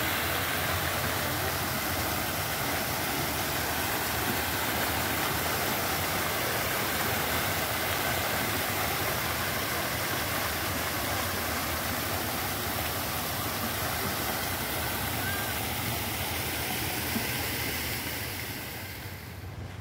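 Fountain jets spraying and splashing into a stone basin: a steady rush of falling water that grows fainter near the end.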